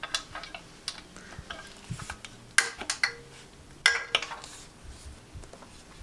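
Light clicks and taps of a motorcycle clutch cable being pushed into a cable holder on the frame, with two sharper clicks a little past the middle.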